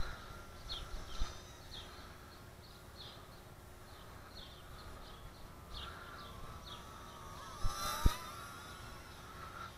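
Thin high whine of the Estes Proto X micro quadcopter's tiny motors, wavering in pitch as it is steered in the breeze, under repeated short chirps of a small bird and low wind rumble. About eight seconds in there is a sharp thump with a brief rustle, the loudest sound.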